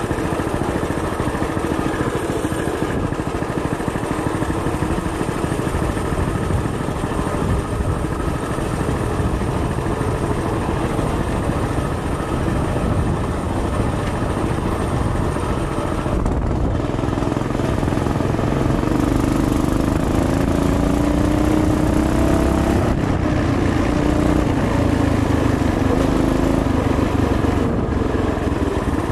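Coleman BT200X mini bike's small single-cylinder four-stroke engine running steadily under way. A little over halfway through it gets louder, and its pitch rises and wavers for a few seconds as the throttle changes.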